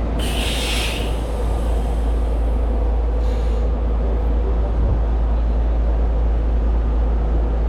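City street traffic rumbling steadily, with a short sharp hiss of air just after the start and a fainter one about three seconds in, like a bus's air brakes releasing.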